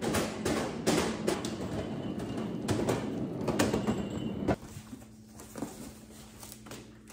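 Busy handling noise, rustling with many knocks and clatters, for about four and a half seconds. It then drops to quieter rustling and a few light taps as cardboard box flaps are handled.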